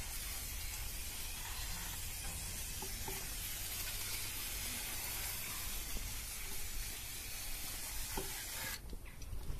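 Aerosol spray can hissing steadily as cleaning spray is sprayed over a dirty engine, cutting off abruptly near the end.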